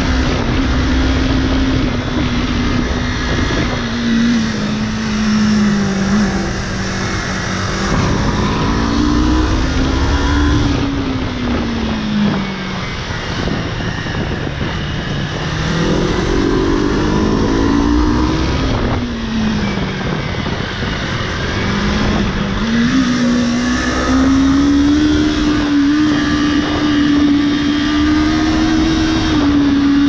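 Motorcycle engine running under way, its pitch rising and falling several times as the throttle is opened and rolled off, rising and holding higher for the last few seconds before dropping near the end.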